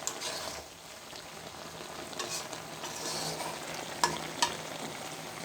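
Cauliflower and potatoes being stirred gently in a kadai over a low sizzle, with the water nearly cooked off. Two sharp taps of the stirring utensil on the pan come about four seconds in.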